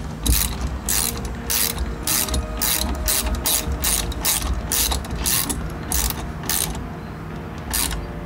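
Crescent low-profile ratchet wrench clicking as it is swung back and forth to run a nut down onto a rear brake bolt, about two to three ratchet strokes a second. The strokes stop about two-thirds of the way through, with one last stroke near the end.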